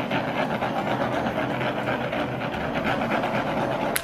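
Handheld butane kitchen torch burning with a steady rushing hiss as its flame is played over icing. The sound cuts off abruptly near the end.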